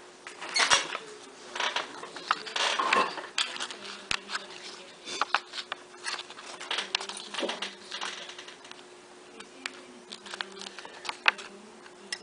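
Small irregular clicks, taps and scratchy plastic rustles of hands handling a phone and the thin double-sided adhesive tape frame being fitted for its touchscreen digitizer.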